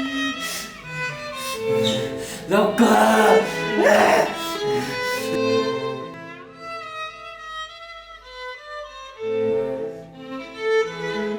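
Background music led by bowed strings, violin with cello underneath, playing sustained notes. About three seconds in there is a louder, wavering passage lasting a couple of seconds, and the music thins out for a few seconds past the middle before the strings come back in.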